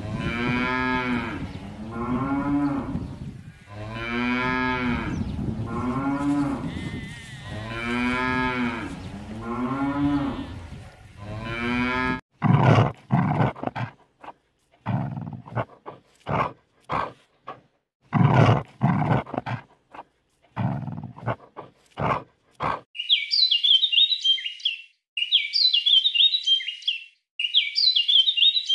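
Cattle mooing: a series of long moos, each rising and falling in pitch. About twelve seconds in they give way to a dog barking, about a dozen short barks over some ten seconds. Near the end a bird's high chirping phrase repeats four times.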